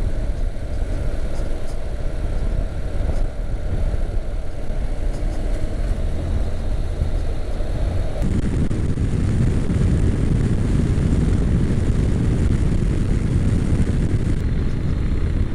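Honda NC700X parallel-twin motorcycle under way at town speed, with engine, tyre and wind noise on the camera microphone. About eight seconds in it changes abruptly to a louder, steady low rumble of wind and road noise at open-road speed.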